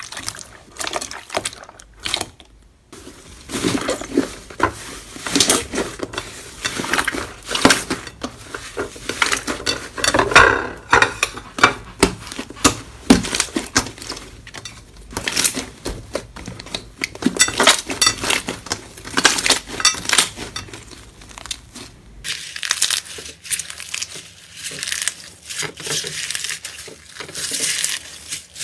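Slime being squished and pressed, with dense, irregular crackling and popping; about three-quarters of the way through the sound changes to a thinner, higher crackle.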